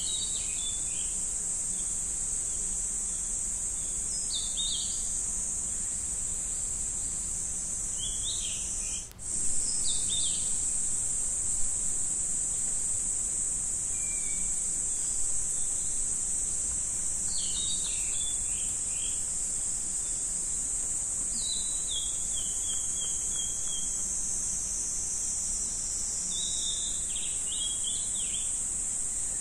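A steady, unbroken high-pitched insect chorus, with short bird chirps breaking in every few seconds. About nine seconds in, the sound drops out for an instant.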